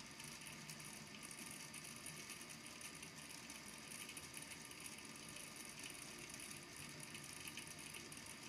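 Small balls in a volcano lamp's water tank tapping and rattling against the tank base, a faint, constant fine patter of clicks over a low hum.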